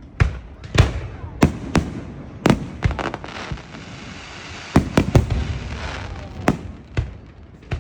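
Fireworks going off: about a dozen sharp bangs at uneven intervals, with a crackling hiss between about three and six seconds in.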